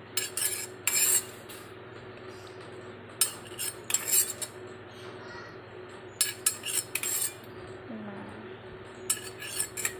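Metal spoon clinking against a metal cup and glass bowls in short clusters every second or two, as spoonfuls of water are measured into salt to make a salt solution.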